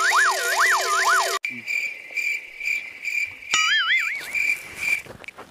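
A wailing sound effect that sweeps up and down several times, cut off abruptly about a second and a half in, then a cricket chirping sound effect with steady, evenly pulsed chirps, and a short warbling tone near the middle.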